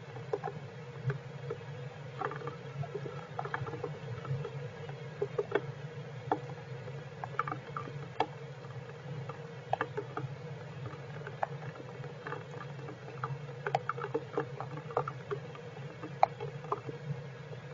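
Heavy rain pattering, heard as irregular scattered taps and clicks of falling drops over a steady low hum.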